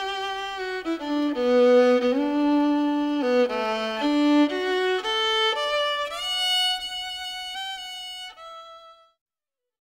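Fiddle playing a melody as closing music, ending on a held note that fades out near the end.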